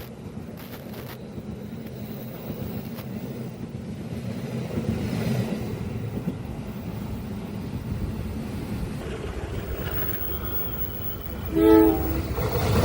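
Train running with a steady low rumble, then one short, loud horn blast near the end.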